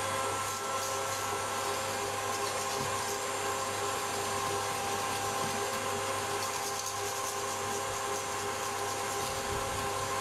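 Electric mixer's motor running steadily as it whips a meringue, with a wire balloon whisk stirring and scraping in a metal bowl.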